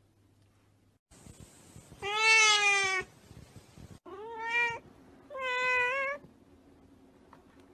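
A cat meowing three times: a long meow about two seconds in, the loudest, then two shorter ones, the second rising at its start and the last held at a level pitch.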